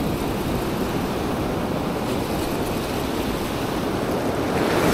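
Ocean surf breaking and foamy wash running over shallow sand, with wind on the microphone; the wash swells louder near the end.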